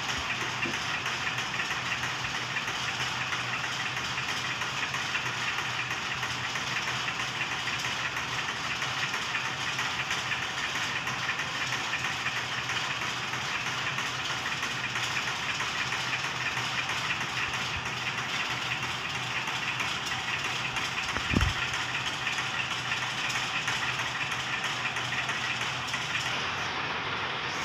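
Warping machine running steadily, winding nylon warp yarn onto a beam: a fast, even mechanical clatter over a low hum. One low thump about 21 seconds in.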